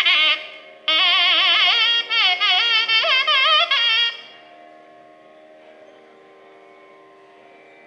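Nadaswaram playing a phrase of a Dharmavati raga alapana, its pitch sliding and oscillating in wide ornaments, over a steady drone. About four seconds in the nadaswaram stops and the drone carries on alone, much quieter.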